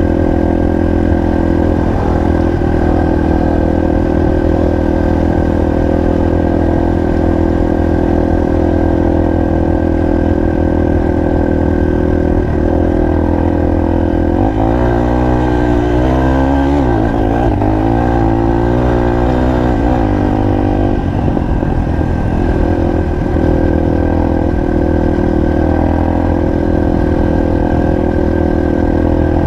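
Single-cylinder four-stroke trail motorcycle engine running under way at a mostly steady pitch, with the revs rising and falling for several seconds around the middle.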